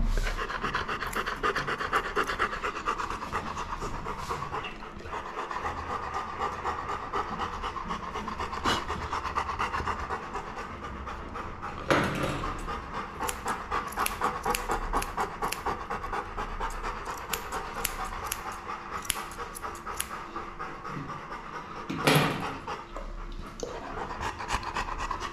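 Bernese mountain dog panting fast and steadily. Thin clicks of grooming scissors snipping the fur around its paw come through, with two louder short bursts about halfway through and near the end.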